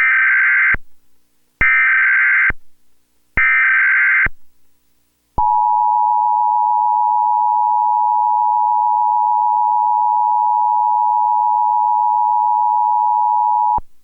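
Emergency Alert System SAME header, sent as an Emergency Action Notification: three short bursts of modem-like data tones, each under a second, about a second apart. About a second after the last burst comes the two-tone EAS attention signal, a steady dual tone of 853 and 960 Hz held for about eight seconds, which cuts off abruptly.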